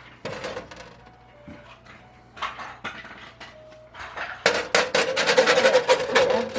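Kitchen utensils clinking and knocking against a metal baking sheet as cooked bacon strips are lifted off it. About four and a half seconds in, a denser run of scraping and crackling begins and is the loudest part.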